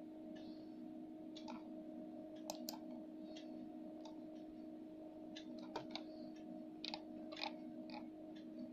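Computer mouse clicking: irregular sharp clicks, some in quick pairs, over a steady low hum.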